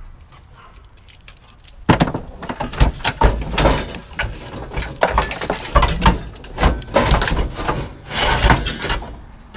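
Scrap car parts clanking and rattling in a pickup bed as a steering column, with its wheel and wiring, is pulled up out of the pile. A dense run of irregular metal knocks and clatters begins about two seconds in.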